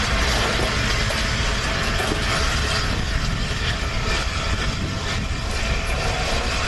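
Passenger coaches of a steam-hauled train rolling past close by: a steady rumble of wheels on the rails.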